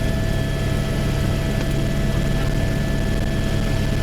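Helicopter running in flight: a steady, unbroken drone of engine and rotor with a constant whine over it.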